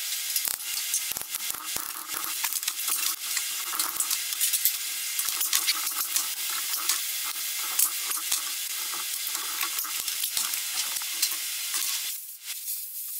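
Steady crackling hiss with many small, irregular metallic clicks from hand tools and small parts being handled on an aluminium diesel injection-pump housing; the hiss eases off near the end.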